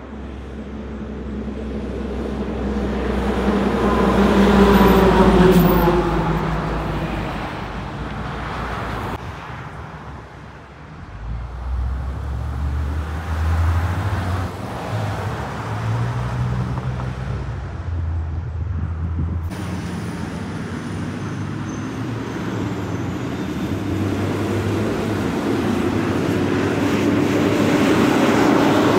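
Road vehicles passing, in three sections with abrupt cuts about nine and twenty seconds in. First a vehicle goes by, getting loudest about five seconds in, its pitch falling as it passes. Then a box truck's engine runs as it drives past, and near the end a school bus's engine grows louder as it passes close by.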